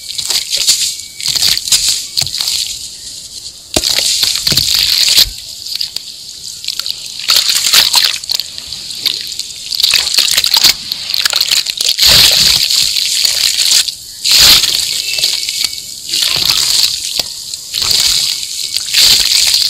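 Hands crumbling a wet sand block into water in a basin and squeezing and swishing the muddy slurry, giving irregular sloshes and gritty splashes that come and go every second or two.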